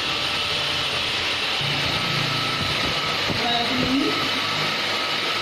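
Steady hissing machine noise at an even level throughout, with faint voices underneath.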